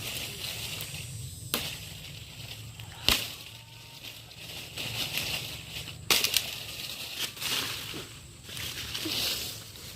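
Three sharp knocks or snaps, the second about a second and a half after the first and the third some three seconds later, over a steady high hiss that swells and fades.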